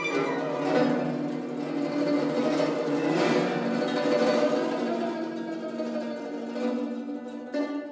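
Solo guzheng: a dense, ringing cluster of rapidly plucked strings that swells about a second in and slowly fades, with a fresh stroke on the strings near the end.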